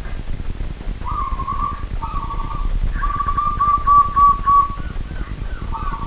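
Zebra dove (perkutut) singing its cooing song: a short phrase about a second in, another at two seconds, then a longer rapid trilled phrase that runs for nearly two seconds, with a new phrase beginning near the end.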